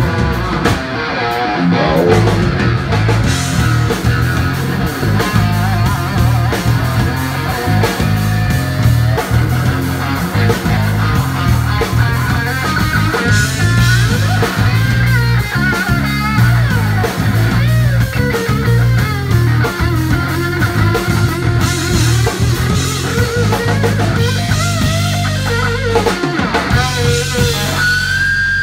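Live blues-rock band: a lead electric guitar plays bending, wavering notes over a drum kit and a steady low bass line, with no singing.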